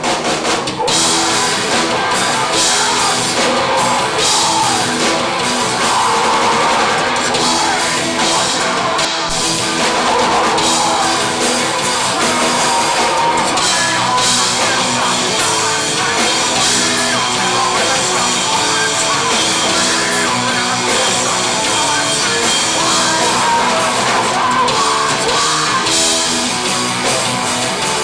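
A metal band playing live at full volume: drum kit, distorted guitar and bass, with sung vocals over the top.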